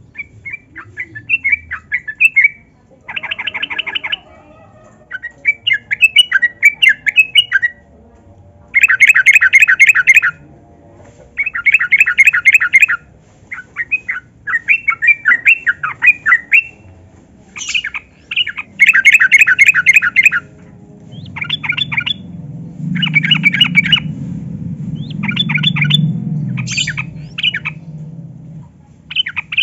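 Yellow-vented bulbul (trucukan) singing: repeated bursts of rapid, bubbly chattering phrases, each a second or two long, with short pauses between them.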